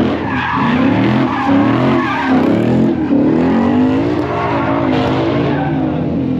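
Car engine revving high, its pitch wavering up and down, with tyres squealing through a smoky burnout.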